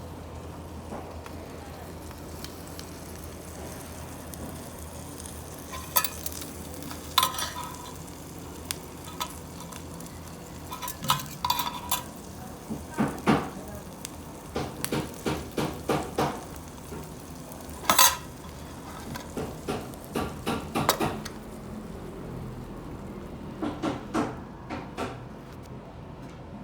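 Metal utensils clinking and scraping against cookware while breakfast is cooked, in scattered clusters of sharp, briefly ringing strikes over a steady low hum.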